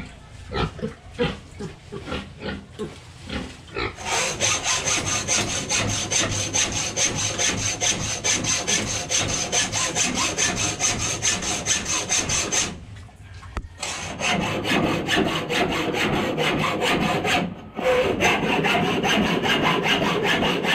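Hand saw, most likely a hacksaw, cutting through metal in the pen: a few slow starting strokes, then quick, even back-and-forth strokes with a steady high ring from the blade. The strokes come in three runs, stopping briefly twice.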